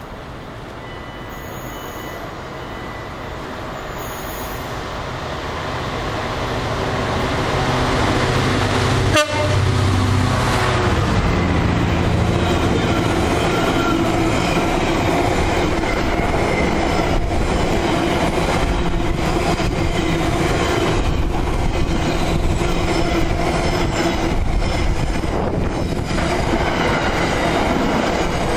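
Container freight train approaching and running through the station: a rumble that grows steadily louder as the locomotive nears, a sudden knock about nine seconds in as it passes, then the steady rumble and clatter of the container wagons' wheels over the rail joints.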